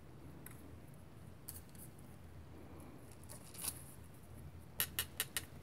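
Quiet handling of a polymer clay leaf on paper over a cutting mat: faint fingertip rubbing and a few light ticks, then a quick run of four sharp taps near the end.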